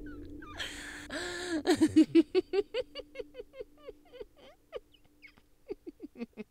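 A young woman laughing: a breathy rush of air, then a fast run of high 'ha' pulses that slows and fades, with a second short burst of laughter near the end.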